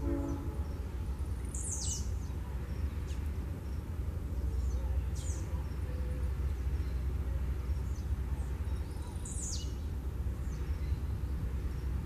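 Blue-black grassquit (tiziu) singing its short, high, falling song phrase three times, about four seconds apart, with a few fainter high notes between. A steady low rumble runs underneath.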